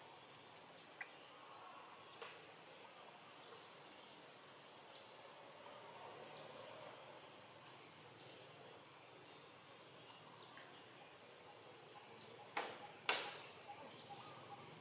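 Quiet outdoor ambience with faint, short, high chirps of birds scattered throughout. Two sharp clicks, the loudest sounds, come close together a couple of seconds before the end.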